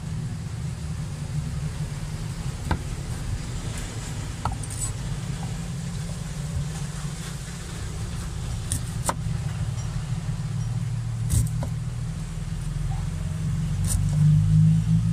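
Steady low rumble of a motor vehicle engine running close by, growing louder near the end. A few sharp knocks of a cleaver chopping limes on a wooden board are heard over it.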